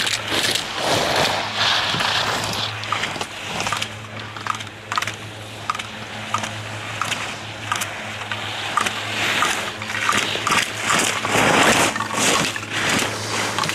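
Slalom skis scraping and carving across hard-packed snow, with sharp clacks as the racer knocks the hinged slalom poles aside, over a steady low hum. The scraping is loudest near the end as the skier passes close.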